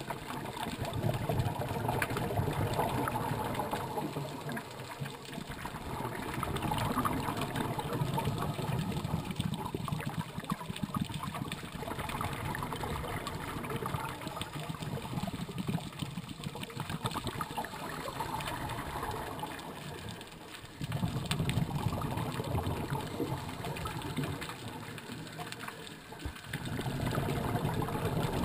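Scuba diver's exhaled bubbles from the regulator, a bubbling rumble that swells in bursts every five or six seconds with quieter breathing-in stretches between, heard through the camera's underwater housing.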